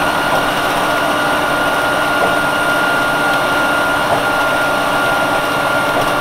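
Nova Bus RTS-06 transit bus with its Detroit Diesel Series 50 engine running, heard from inside the passenger cabin: a steady, even drone with a constant high whine over it.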